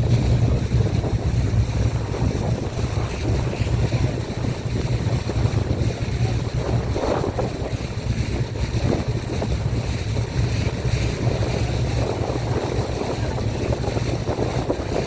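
Boat engine running with a steady low drone, under wind buffeting the microphone and water rushing past the hull.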